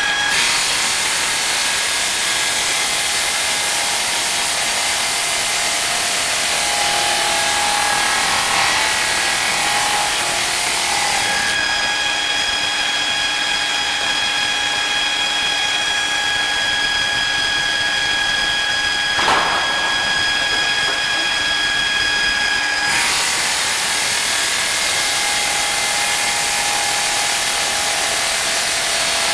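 Water-cooled diamond blade of an automatic stone cross-cutter sawing through a granite slab: a steady loud hiss with a whine whose pitch shifts about a third of the way in and back near the end. A single short knock comes about two-thirds of the way through.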